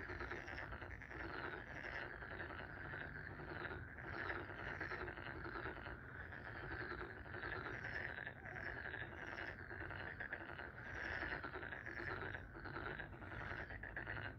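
A steady chorus of many calling animals, short calls repeating and overlapping without a break.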